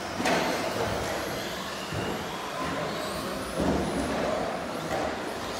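Radio-controlled race trucks running on an indoor carpet track: a high electric-motor whine rising and falling over the steady noise of the hall, with a knock shortly after the start.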